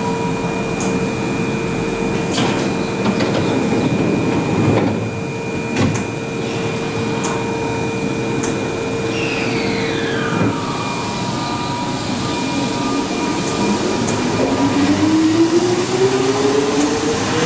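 Keihan 6000-series electric train at the platform: a steady hum and a few knocks as it stands and its doors shut, then from about 13 seconds in the traction motor whine rises steadily in pitch as the train starts to pull away.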